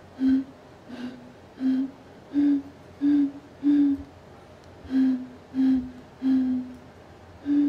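Homemade pan flute of plastic water bottles, blown across the bottle mouths: about ten short, breathy low notes in an uneven rhythm, mostly on the same pitch, a few slightly lower.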